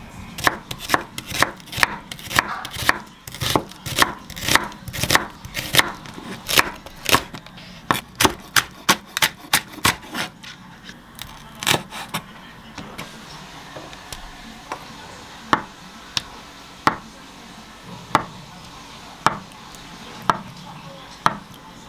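Chef's knife cutting onion, green onion and then tofu on a wooden cutting board: quick knife strikes on the board, two or three a second, for about the first twelve seconds, then slower single cuts about once a second.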